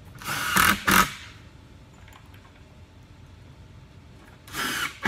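Cordless drill with a No. 3 Pozi-Drive tip driving 7 x 50 mm confirmat screws into a melamine cabinet panel, in two runs of about a second each: the first shortly after the start, the second near the end.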